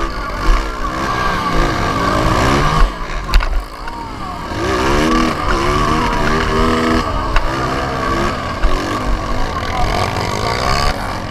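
Dirt bike engine revving up and falling back again and again, close to the microphone, with other bikes' engines around it and low wind rumble. A sharp knock comes about three seconds in.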